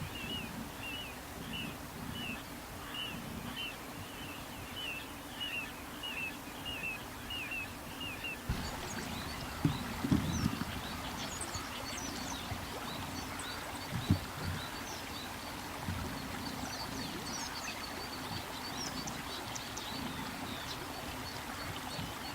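Little ringed plovers calling: a regular series of short calls about twice a second, then, about eight seconds in, higher, thinner calls coming irregularly. A few low thumps stand out about ten and fourteen seconds in.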